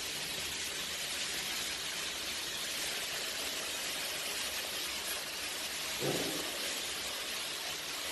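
Steady hissing noise of a metal fabrication workshop. A short low thud sounds about six seconds in.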